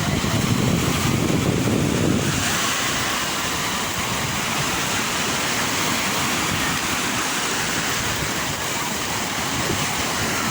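Sea waves washing on the shore: a steady surf noise, with a deeper rumble of breaking water for about the first two seconds that eases into a lighter hiss of receding foam.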